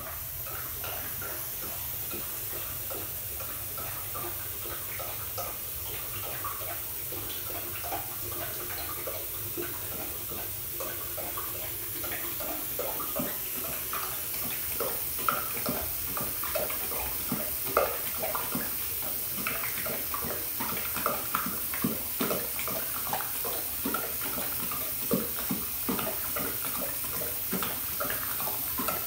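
Bathroom faucet running steadily into the sink. From about halfway through, a Great Dane laps at the stream in quick, irregular laps over the sound of the running water.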